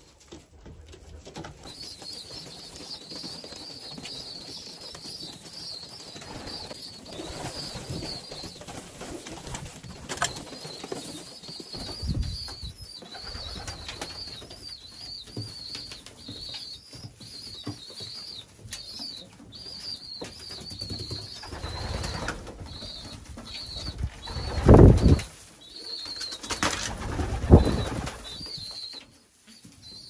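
Young racing pigeons in a loft: a steady high-pitched peeping, with wings flapping in four short bursts, the loudest about three quarters of the way in.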